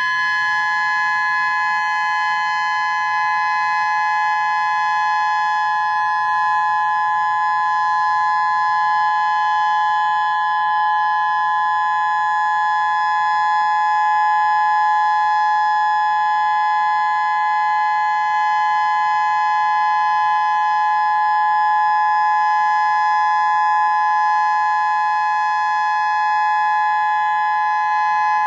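Whelen 2016 electronic warning siren sounding a loud steady tone, two close pitches held level without rising or falling, for its monthly test.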